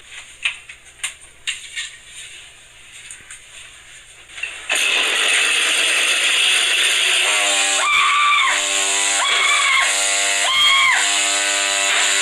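Chainsaw being started: a few rattling clicks and knocks, then about five seconds in the two-stroke engine catches and runs loudly. From about seven seconds it is revved in repeated surges, about one every second and a half.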